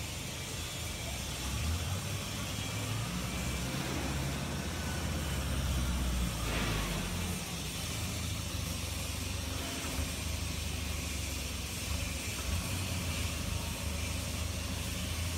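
Forklift engine running steadily while it carries a road sweeper's body, growing louder for a few seconds from about two seconds in, then easing back.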